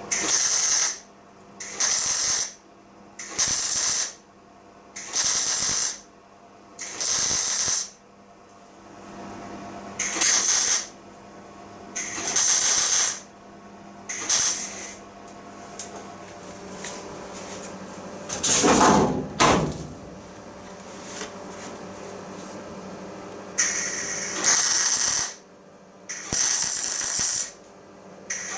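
A welder laying short tack welds along a car floor panel: about ten separate bursts, each a second or so long, in irregular runs with short pauses between them, over a steady low hum. The welding is done in little sections to avoid overheating and buckling the thin floor panel. A little past the middle comes one brief, different sound whose pitch falls and rises.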